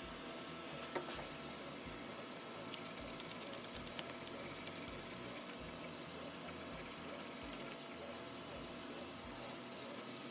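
Hand-sanding a wooden shotgun-stock comb with sandpaper: a steady scratchy hiss of abrasive rubbing on wood, with a few faint clicks.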